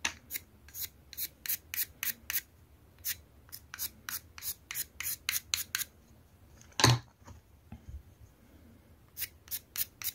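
Pencil lead scratching quick strokes across the gritty face of a sharpening stone, several a second, as a grid of lines is marked on it to check its flatness. The strokes pause in the middle, where a single louder knock sounds about seven seconds in.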